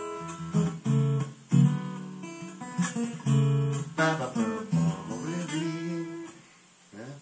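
Acoustic guitar playing a melodic phrase of plucked single notes mixed with strummed chords, which stops about six seconds in.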